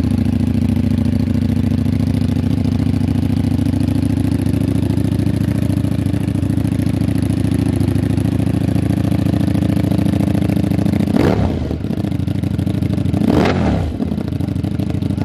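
Ducati Streetfighter V4's V4 engine idling steadily through a newly fitted Termignoni full exhaust, then blipped twice near the end, each rev rising and dropping back quickly.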